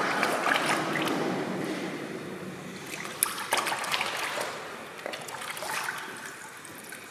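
Shallow water splashing and sloshing as feet in wooden geta sandals wade through it. It is loudest at first and dies down, with a few sharp knocks about halfway through.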